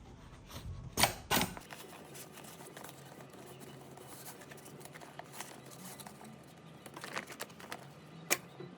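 Irregular sharp clicks and taps over quiet handling noise, from work at a sewing machine on stiff bag fabric.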